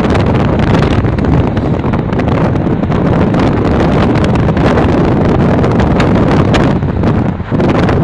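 Wind buffeting the microphone over the rumble of a car driving on the open road. The noise is loud and steady, with a short drop near the end.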